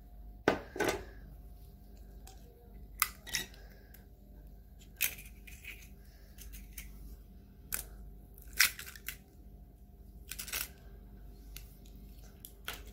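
Two hen's eggs being cracked open one after the other into a glass bowl: a series of short, sharp taps and shell cracks with pauses between them.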